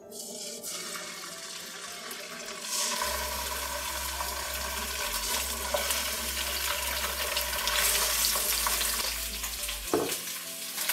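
Raw chicken drumsticks sizzling in hot oil in a nonstick wok as they are laid in one after another. The sizzle gets louder about three seconds in.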